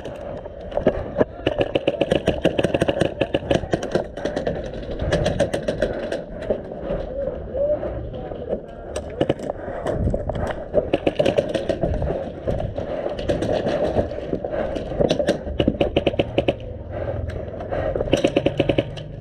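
Airsoft gunfire: rapid full-auto strings of shots, burst after burst, some close and loud.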